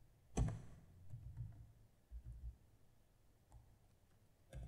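Faint, scattered keystrokes on a computer keyboard, the sharpest click about half a second in.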